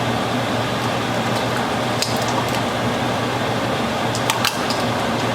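Raw shrimp sizzling steadily in butter and olive oil in a pot, with a few sharp clicks of a utensil against the pot about two seconds in and again near the end.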